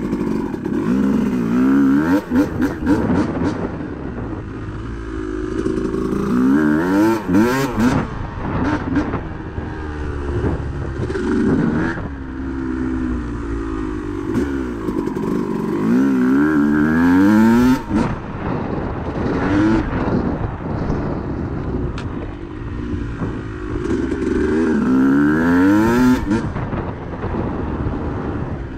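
Dirt bike engine under way, revving up in pitch and easing off again and again as it is ridden.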